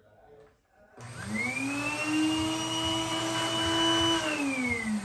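Dyson DC01 upright vacuum cleaner motor switched on about a second in, its whine rising as it spins up, running steadily for about three seconds, then switched off and winding down in pitch near the end. It is a UK-voltage machine on US mains through a plug adapter, which its owner thinks may be why it runs low with almost no suction.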